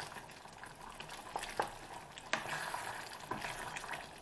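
A spoon stirring a thick simmering stew in a metal skillet: soft wet sloshing of the sauce, with a few light clicks of the spoon on the pan, the loudest about two and a half seconds in.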